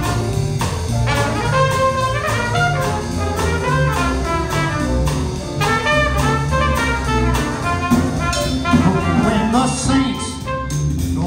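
Small traditional jazz band playing an instrumental passage: trumpet lead over electric bass guitar, piano and drum kit, with a steady beat.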